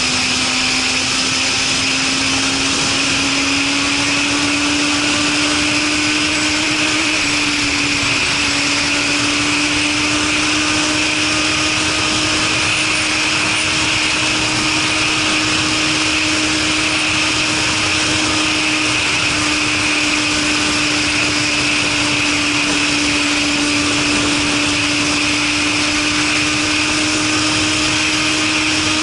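Suzuki Katana motorcycle's inline-four engine running through a Super Combat aftermarket muffler while riding at a steady pace. The engine note climbs slightly over the first several seconds, then holds steady under a constant rushing noise.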